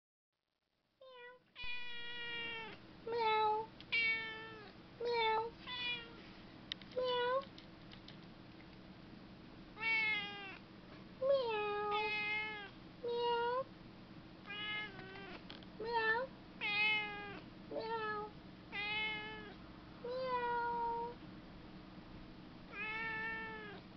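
Domestic cat meowing over and over in short, bending 'mrr' calls, about fifteen of them, with a pause of a couple of seconds partway through.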